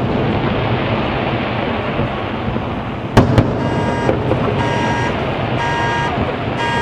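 Fireworks display going off: continuous dense crackling and rumbling, with two sharp bangs about three seconds in. From about four seconds a car alarm sounds in a repeating on-off tone, about one beep a second.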